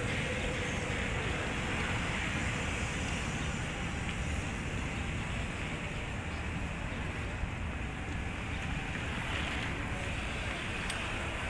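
Steady wind rumble and hiss on the microphone over outdoor road ambience, with no distinct events.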